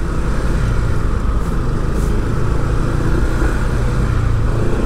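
Steady rumble of motor-vehicle traffic with a low engine hum.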